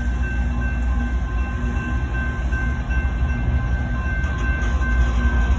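Train running with a steady low rumble, with faint high tones coming and going above it.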